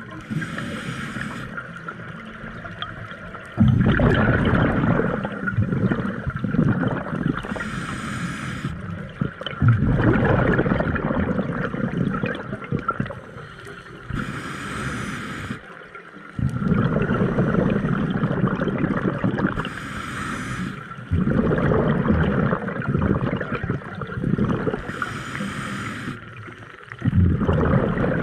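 A scuba diver breathing through a regulator underwater, five breaths about every five to six seconds. Each breath is a short hiss as air is drawn through the regulator, then a longer, louder gurgle of exhaled bubbles.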